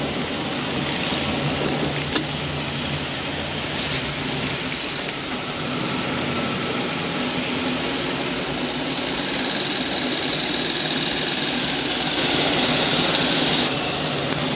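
Engines of a column of World War II-era armoured cars running as they drive past close by, a steady mechanical drone that grows louder in the last few seconds.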